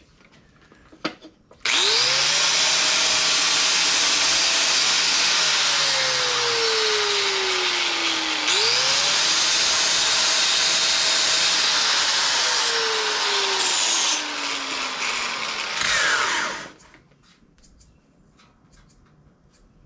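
Electric grinder grinding the edges of a steel fender patch piece to fit. The motor runs up to speed, its pitch sags as it is pressed into the metal, picks up again about halfway and sags once more, then winds down and stops a few seconds before the end.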